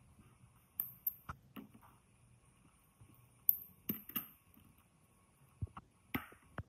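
Scattered sharp clicks and light taps as a power cord's plastic cable ties are snipped with shears and the shears and cord are handled on a workbench. The loudest click comes about three and a half seconds in.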